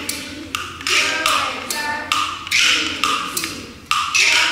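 Kuaiban bamboo clappers clacking in the rhythm of a clapper-talk recitation, with a group of boys chanting Mandarin verse between the clacks.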